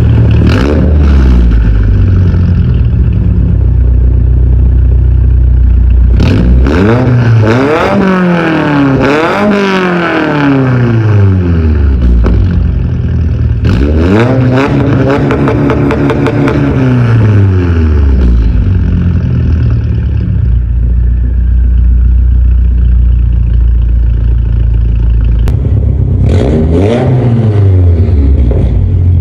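Straight-piped, tuned Subaru WRX (VB) turbocharged 2.4-litre flat-four idling, then revved: a run of quick blips about six seconds in, a longer rev that climbs, holds briefly and drops back to idle, and one more rev near the end.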